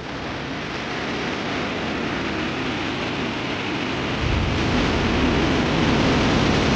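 Steady rush of water noise that slowly grows louder, with a deep rumble joining about four seconds in.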